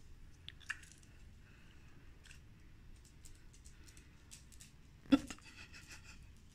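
Faint scattered clicking of a corgi's claws on a tiled floor as the dog moves about, with one louder short knock about five seconds in.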